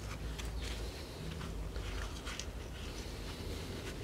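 Faint handling noises: small scattered clicks and rustles as rubber-gloved hands turn over a rusty motorcycle brake caliper, over a steady low hum.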